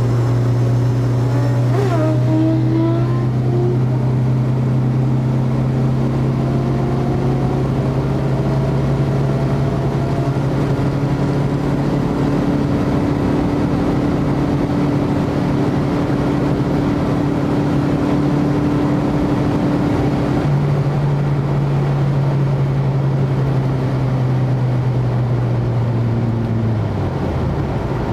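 Steady engine, road and wind drone of vehicles at high speed, heard from inside a car cabin: a constant low hum that dips briefly in pitch and recovers near the end.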